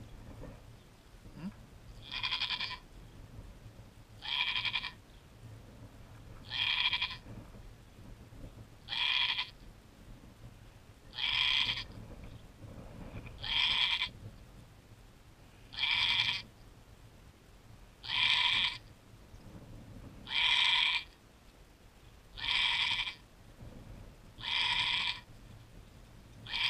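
Goat doe in labor bleating in a steady rhythm, one cry about every two seconds, about a dozen in all, as she strains just before the kid is delivered.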